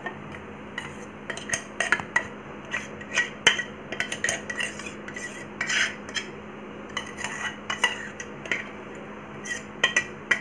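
A metal spoon scraping and tapping against a steel mixer jar and steel bowl while thick ground batter is emptied out: irregular clicks and knocks, some with a short metallic ring.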